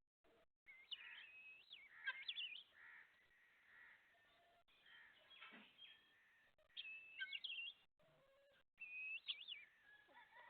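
Young chickens peeping: many high chirps that slide up and down in pitch, coming in clusters, with a few brief moments where the sound cuts out entirely.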